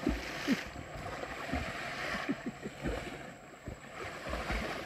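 Water sloshing and splashing in uneven surges, with a few low thuds, as people wade through shallow water working a gill net.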